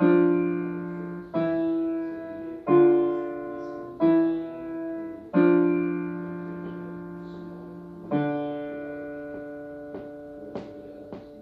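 Piano played slowly, with notes struck about every second and a half. Near the end a final held note rings and fades out: the closing bars of a short piano canon. A few soft clicks come as it dies away.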